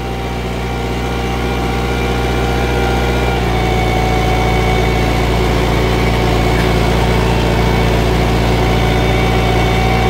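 Kubota diesel tractor engine running steadily while ploughing, growing louder over the first few seconds and then holding level.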